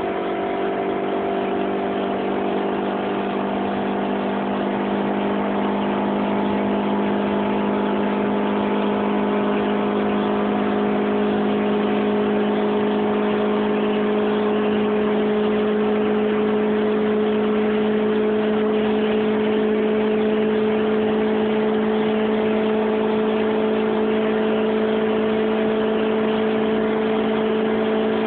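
Honda CRX (ED9) engine droning steadily at motorway speed, heard from inside the cabin over road noise, its pitch creeping slowly upward.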